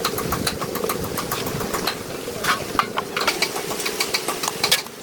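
An engine running steadily, with many sharp clicks and knocks over it.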